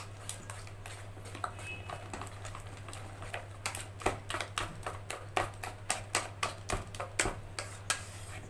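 Soft, sticky zalabia batter being beaten by hand in a bowl: wet slaps and clicks, sparse at first, then a regular beat of about two to three strokes a second from a few seconds in. A steady low hum runs underneath.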